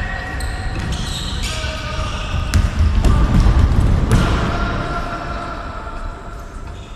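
A football kicked on the pitch, with two sharp thumps about two and a half and four seconds in, amid players' distant calls.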